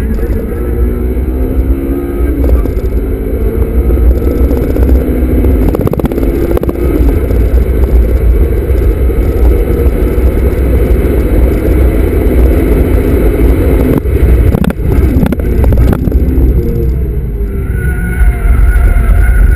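Honda Civic Type R FD2's 2.0-litre four-cylinder engine heard from inside the cabin, driven hard, its pitch climbing and dropping repeatedly through the gears. A heavy low rumble runs underneath.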